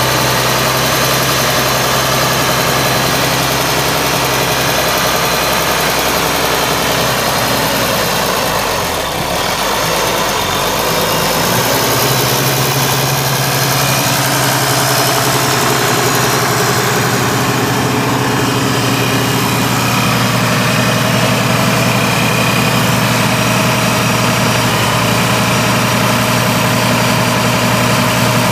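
A 1979 International 1086 tractor's 6.8-litre six-cylinder turbo diesel running steadily at idle. About nine seconds in it dips briefly, and after that the engine note shifts slightly.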